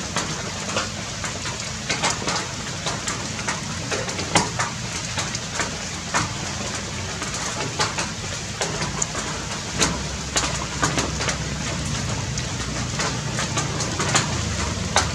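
Rain falling steadily: a constant hiss with many short, sharp drop ticks scattered through it.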